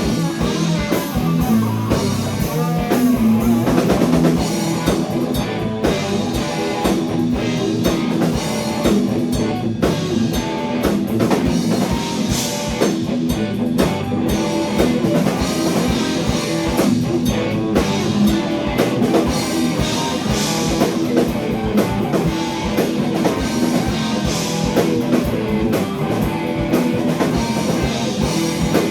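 Heavy blues-rock band playing live: electric guitar over a steadily pounding drum kit.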